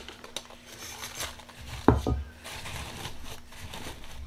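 Black-powder-coated rice hulls being pressed and packed by hand into a tissue-lined cardboard shell hemisphere: light rustling of the tissue and small clicks of the hulls, with a single sharper knock about two seconds in.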